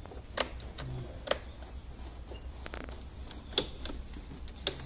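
Sharp plastic clicks and taps from hands working an electric scooter's handlebar cover and controls: four separate clicks and a short scrape a little past halfway, over a low steady hum.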